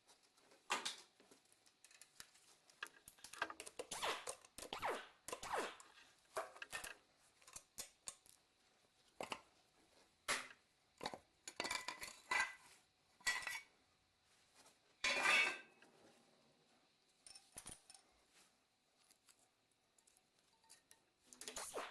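Irregular metallic clinks and clatters of tools and steel engine parts being handled and set down, with a longer, louder clatter a little past the middle.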